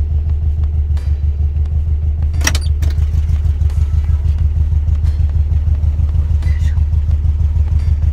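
Tuned air-cooled VW Beetle's 2007cc flat-four with Weber 48 carburettors idling with a steady, pulsing beat. A short click about two and a half seconds in as the driver's door is opened.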